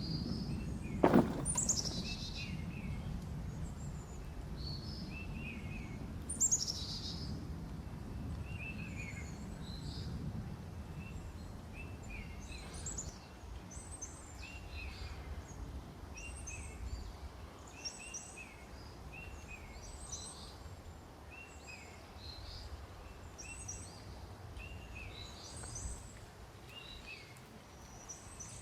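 Small songbirds chirping repeatedly, with a few sharp downward-sweeping calls among the short notes. A low rumble of outdoor background noise sits under them and fades about halfway through, and there is one sharp knock about a second in.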